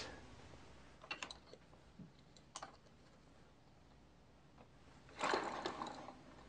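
Faint clicks and light knocks of wooden model engine parts being handled, with a louder burst of scraping and clicking lasting under a second about five seconds in.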